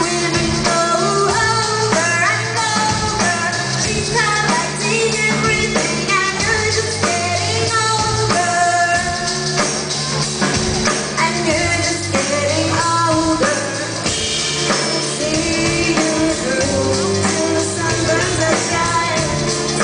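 A live pop-rock band performing a song: a female lead singer sings over electric bass and drums.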